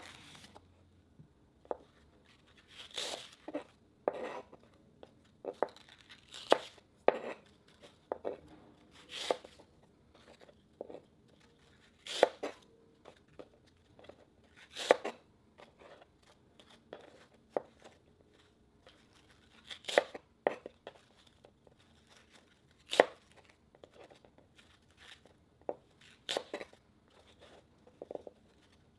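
Short, crisp cutting and tearing sounds, one every second or two with pauses between, made while cutting up slime-making material.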